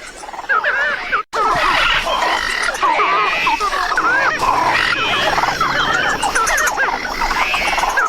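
Designed Coelophysis dinosaur calls: many chirping, squealing cries overlapping like a whole pack calling at once. A brief break about a second in, then a dense, steady chorus.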